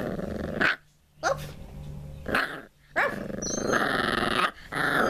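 Pit bull puppy growling in four short runs with brief pauses between, some opening with a quick high yip.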